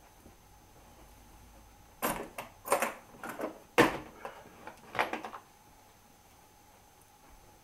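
Metal hand tools clattering as they are handled and picked up: a run of sharp knocks and rattles over about three seconds, the loudest about halfway through.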